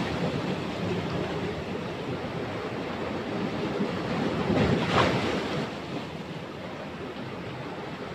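Sea surf breaking and washing over shore rocks. One wave crashes loudest about five seconds in, then the wash settles to a lower hiss.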